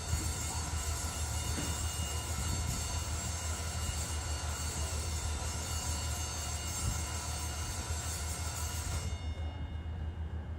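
Alishan Forest Railway diesel train running steadily at the station: a constant low engine hum under a high hiss, the hiss dropping away about nine seconds in.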